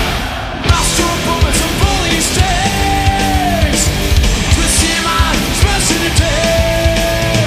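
Heavy metal band playing live: distorted electric guitars and drums, with a male voice singing into the microphone.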